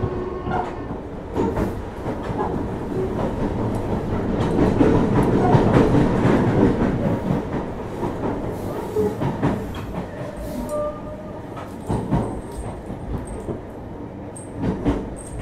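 Running noise inside a JR Hokkaido 733 series electric train: a steady rumble that swells a few seconds in and then eases off, with scattered clicks from the wheels.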